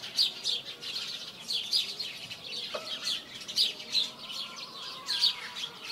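Small birds chirping busily: many quick, high, downward-sweeping chirps overlapping one another.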